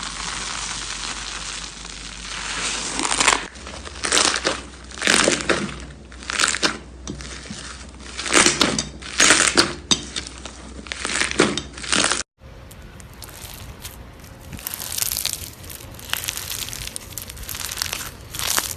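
Slime being squeezed and worked by hand: noisy squishes in repeated bursts, roughly one a second. About two-thirds of the way through there is a brief cut to another slime clip with softer, denser crackling.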